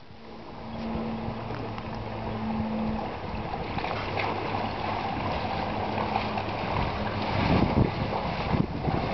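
Wind buffeting the microphone over a dog and a man wading through shallow seawater, with the splashing getting louder near the end as the dog trots through the water alongside him. A faint steady hum sits underneath.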